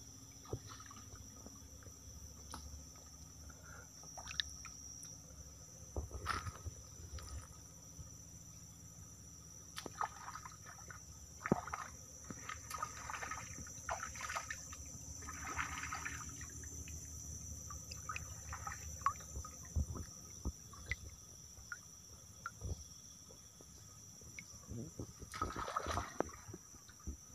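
A hand splashing and trickling in shallow stream water, in bursts around the middle and again near the end, over a steady high-pitched insect chorus.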